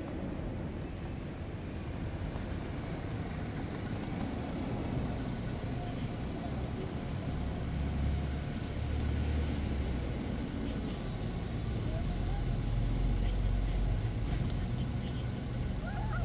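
Low rumble of passing road traffic, swelling twice. A kitten gives a short meow about twelve seconds in and another near the end.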